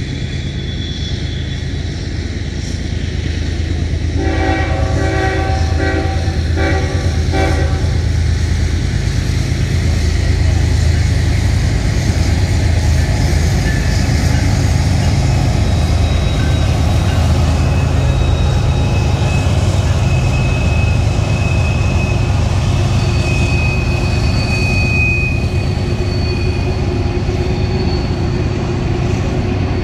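Freight train approaching and passing: a diesel locomotive rumbles steadily, and its air horn sounds a few short blasts about four seconds in. Later the empty coal hopper cars roll by, with high, thin squeals from the wheels.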